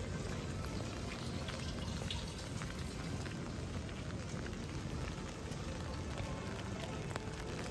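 Steady rain, with many small drop ticks on an umbrella held overhead.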